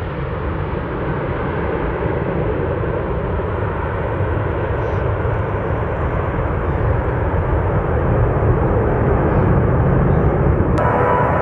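Jet airliner engines running with a steady, dense roar that grows slowly louder over the seconds. Music cuts in abruptly just before the end.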